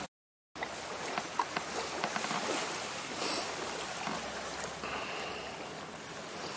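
Small waves lapping gently on the sand of a calm bay shore, a steady soft wash of water noise. It cuts in about half a second in.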